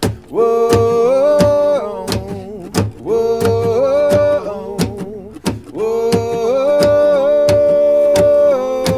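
Acoustic bluegrass band playing, with banjo, acoustic guitar and mandolin keeping a steady strummed beat under a lead line of long, held notes that slide from one pitch to the next.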